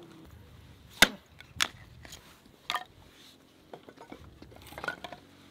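Small hatchet chopping firewood into kindling on a wooden stump: three sharp blows, about a second in, half a second later and near three seconds in, the first the loudest, followed by several lighter knocks of wood.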